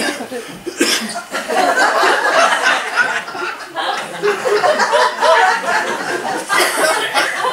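An audience laughing, with many voices overlapping, swelling about a second and a half in and carrying on.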